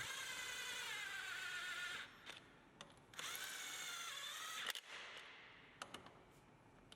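Sealey CP2400MH 24-volt cordless impact wrench motor whirring in two short runs, about two seconds and then a second and a half, its whine wavering in pitch, with a few small clicks between and after.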